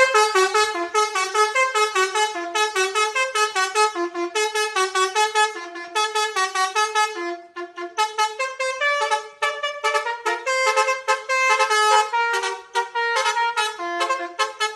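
Basuri telolet horn, a multi-trumpet musical bus horn, playing a fast tune of short blaring notes that jump in pitch several times a second. Shortly before halfway the notes briefly drop out, then come back choppier and more clipped.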